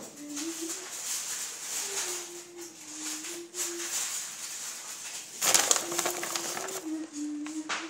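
A soft wordless tune of held notes stepping between a few low pitches, with a short burst of rustling about five and a half seconds in.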